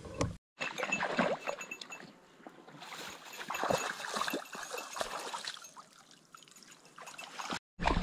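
Water trickling in a bog channel, with irregular small splashes and ticks that come and go in level.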